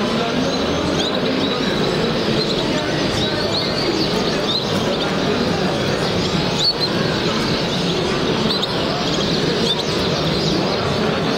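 Many canaries chirping and calling at once, with short high chirps scattered throughout over a steady murmur of crowd voices.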